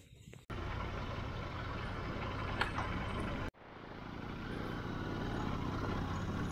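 Royal Enfield Interceptor 650's parallel-twin engine running steadily as the motorcycle rides a dirt trail, with road and wind noise mixed in. The sound starts about half a second in, cuts off abruptly about three and a half seconds in, then builds back up.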